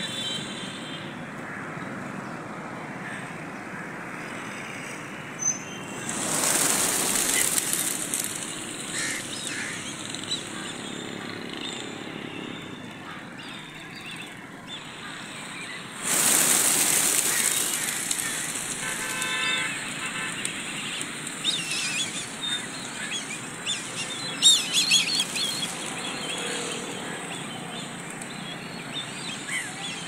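A large flock of feral pigeons taking off with a rush of flapping wings, twice: suddenly about six seconds in and again around sixteen seconds, each rush fading over a couple of seconds. Steady road traffic runs underneath.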